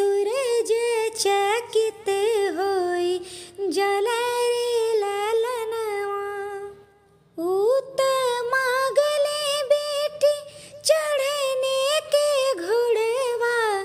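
A woman singing a traditional Awadhi wedding song (vivah geet) in a single solo voice, with a short break about halfway through.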